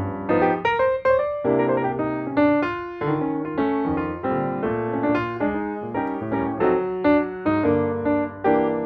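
Background piano music: a gentle melody of separate struck notes over a bass line.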